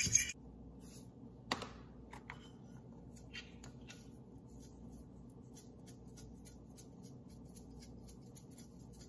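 A fork scrapes a frying pan for a moment and then stops abruptly. A sharp click follows about a second and a half in, then faint, crisp ticks a few times a second as a small seasoning shaker is worked over the pan.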